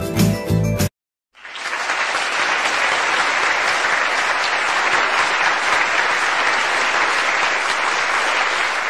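A short bit of music ends about a second in; after a brief gap, steady applause from a group of people follows and carries on evenly.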